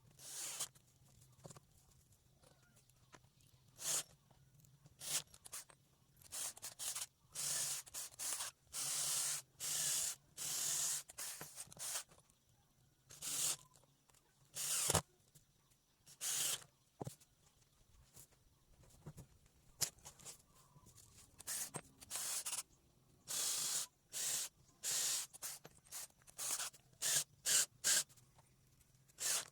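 Repeated short, hissing strokes of a hand tool working wood, each lasting under a second to about a second, coming at irregular intervals and in quick clusters.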